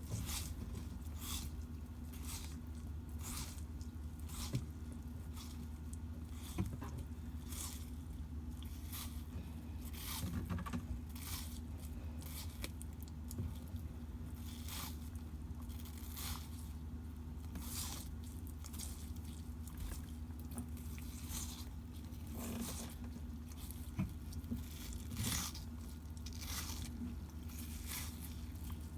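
Sulcata tortoise biting and chewing mango and watermelon: a run of short crunches, about one every second, over a steady low hum.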